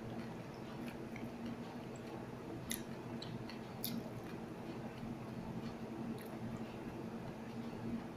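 Someone chewing a mouthful of instant noodles, with two light clicks of a fork about a third of the way in and again about halfway. A steady low hum lies underneath.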